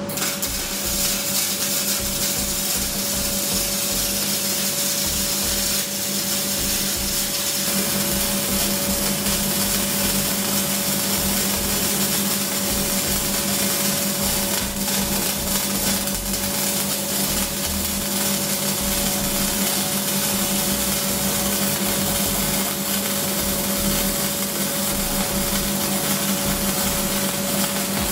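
Flux-core MIG welding arc from a Daiden MIGI 135L welder crackling and sizzling in a continuous run over a steady hum. The arc burns without breaks, the wire feeding smoothly with the drive-roller tension set.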